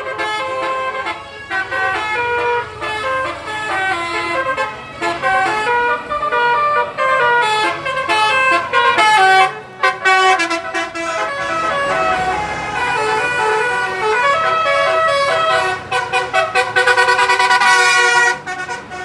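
Bus telolet horn, a set of multi-tone air horns, playing quick stepped melodies in short runs, with a fast stuttering string of notes near the end.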